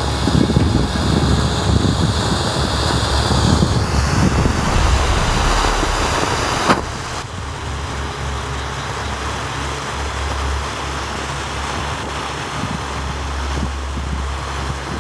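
Ground fountain firework (multi-piece colour fountain) spraying sparks, a steady rushing hiss. There is one sharp snap about seven seconds in, after which the hiss runs on a little quieter.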